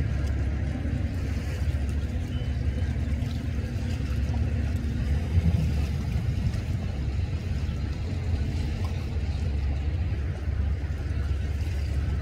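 Hot rod speedboat's engine running at speed out on the lake, heard as a steady low rumble.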